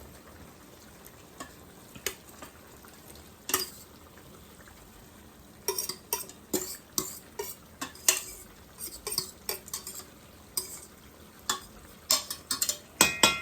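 A spoon stirring potatoes and seasoning in a cooking pot, knocking and scraping against the pot in irregular clinks. The clinks are sparse at first and come thick and fast from about halfway, ending in a brief ringing clink.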